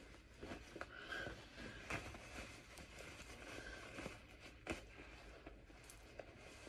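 Faint rustling of cloth garments being folded and handled, with a few light clicks.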